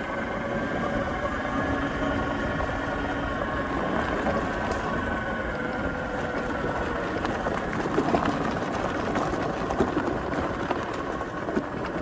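Zero FX electric motorcycle riding over a rough dirt trail: a faint motor whine rising and falling gently with speed over the noise of the tyres and suspension on the bumpy ground, with sharper knocks from bumps in the second half.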